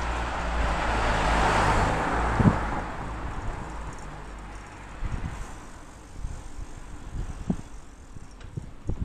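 A car passes close by, its tyre and engine noise swelling over the first two seconds and fading by about three seconds in. After that comes quieter road noise with a few short knocks from the bike over the road surface.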